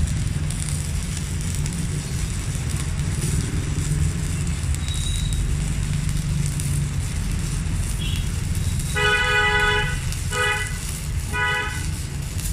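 A vehicle horn toots three times near the end, one longer toot then two short ones, over a steady low rumble of traffic.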